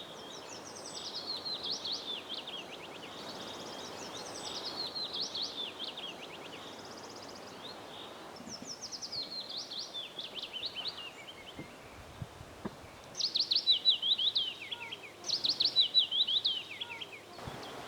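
A songbird singing short phrases of rapid high notes, repeated about five times, over a steady outdoor background hiss.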